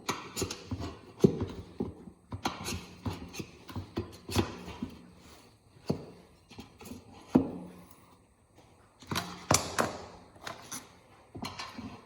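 Irregular knocks and clinks of tools and hands working a tire off a motorcycle wheel rim, with a quieter pause about two-thirds of the way through.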